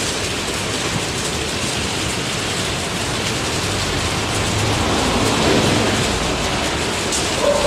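Steady rain, an even hiss, with a low rumble swelling and fading about five seconds in.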